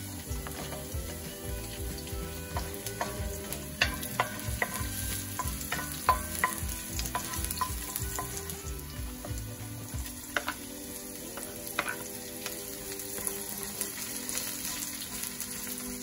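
Sliced garlic sizzling in hot oil in a wok, stirred with a wooden spatula that knocks and scrapes against the pan now and then.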